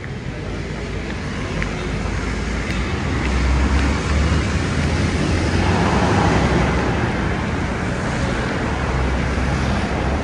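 Busy highway traffic passing close by: a steady roar of engines and tyres, with a heavy low rumble that builds from about three seconds in.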